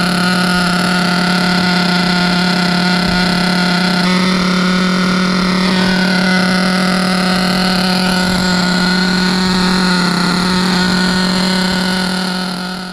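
Small two-stroke glow-fuel engine of a 1/8-scale Serpent SRX8 nitro buggy running at a steady idle on the stand during break-in, its pitch holding level. It cuts off abruptly at the very end.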